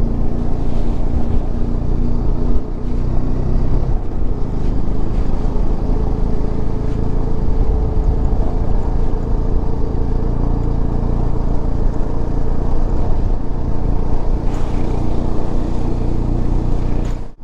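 Bajaj Dominar 400's single-cylinder engine running at a steady pace while riding, with some wind noise on the microphone.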